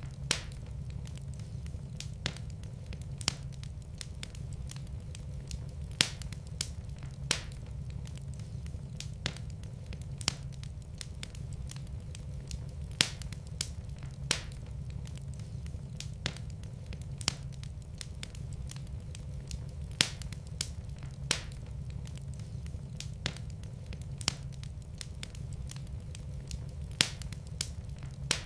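Wood fire burning in a fireplace: sharp, irregular pops and crackles about once a second over a steady low rumble of the flames.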